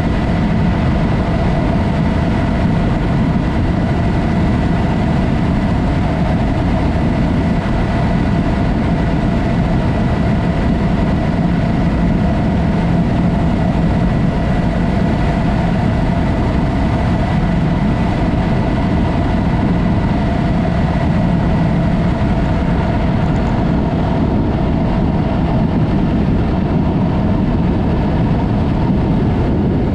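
Yamaha MT-03 motorcycle with an aftermarket Mivv exhaust running at a steady engine speed, its exhaust note holding level with no revving, over a dense low rumble.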